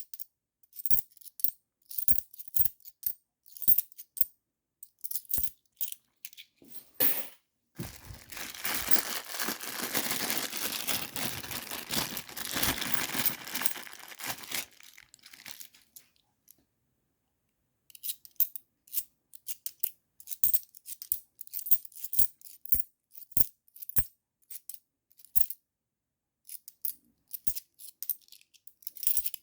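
50p coins clicking and clinking against each other as they are handled and sorted, one sharp click after another. A continuous rustling, sliding noise lasts for about seven seconds in the middle, then stops, and the clicking resumes after a short silence.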